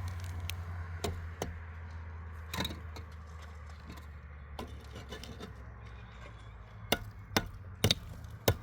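Scattered sharp knocks and taps, a few early and several in quick succession near the end, over a steady low hum.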